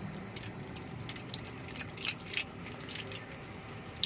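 Wheel-hub roller bearing being packed with grease by hand: irregular soft squelches of grease pressed through the cage and light clicks of the metal rollers, over a low steady hum.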